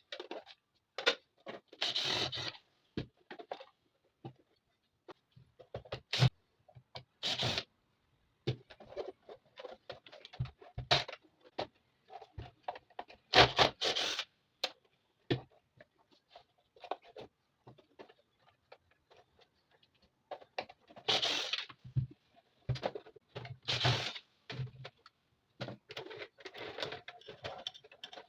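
Irregular clicks, knocks and short scrapes at uneven intervals, with quiet gaps between them: hands handling and working on a sewing machine's parts.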